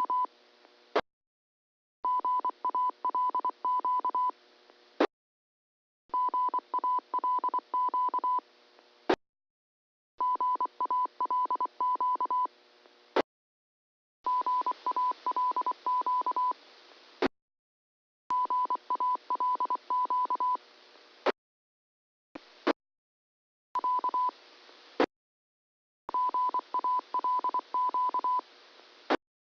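Amateur radio repeater transmissions heard over a receiver, keying up again and again for about three seconds at a time. Each transmission carries a 1 kHz beep keyed on and off in short and long pulses like a Morse code identifier, over radio hiss, and ends with a sharp squelch click.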